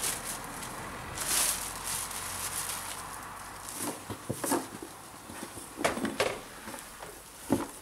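Packaging being handled during unboxing: plastic wrap and cardboard rustling, with several sharp knocks and crackles in the second half as parts are pulled out of the box.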